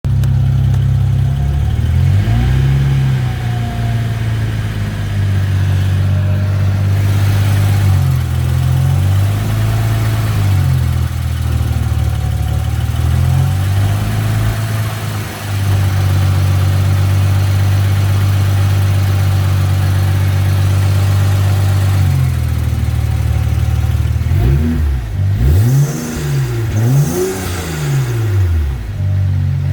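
BMW 335i's turbocharged straight-six running at a steady speed, with a few slight rises in pitch, then revved up and down several times in quick succession near the end. The car has a strange new noise that the owner thinks may come from the exhaust, with no fault codes.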